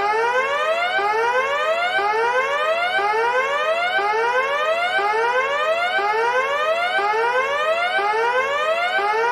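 Emergency alert siren tone: a rising whoop, rich in overtones, repeated at an even pace a little faster than once a second.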